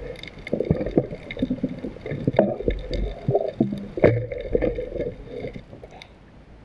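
Water sloshing and gurgling with irregular knocks.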